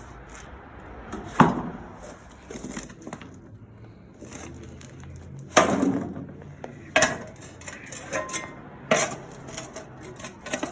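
A handful of sharp, irregular knocks and clanks of wood and metal, the loudest about halfway through, as the rotted wooden anvil stump is taken apart.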